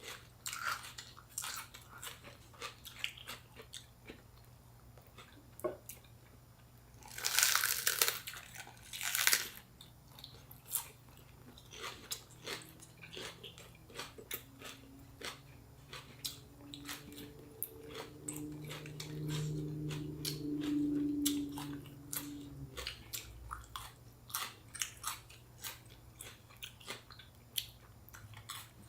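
Close-up chewing and crunchy biting of fresh shrimp spring rolls with raw lettuce, cucumber and bean sprouts, with moist clicks of the mouth throughout. Two louder crunching bites come about seven and nine seconds in, and a low hum is heard for a few seconds past the middle.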